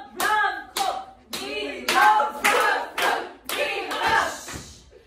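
A group of women's voices singing together, clapping their hands in time about twice a second.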